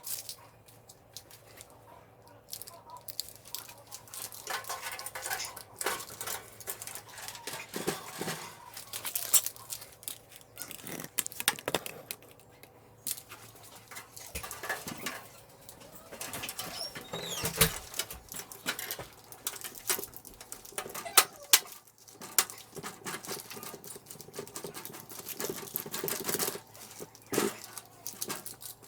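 Irregular light clicks, taps and rustles of small computer parts and screws being handled and fitted by hand, with sharper clicks now and then.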